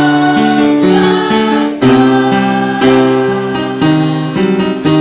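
Choir singing with instrumental accompaniment, holding sustained notes that move to a new chord about every second.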